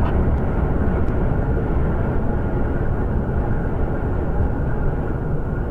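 Steady low rumble of road and engine noise from a moving vehicle, heard from inside its cabin, with no sudden events.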